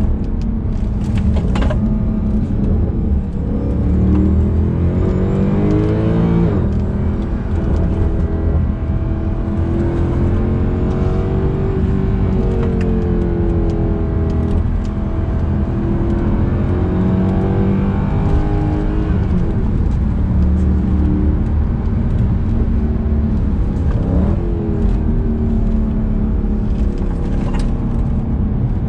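Mercedes C63 AMG Edition 507's 6.2-litre V8 accelerating hard under load, its note climbing and then dropping at gear changes, several times over.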